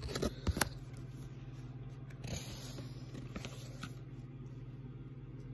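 Baseball cards being handled: a few sharp flicks and taps of card stock in the first second, then quieter sliding and rustling, over a steady low hum.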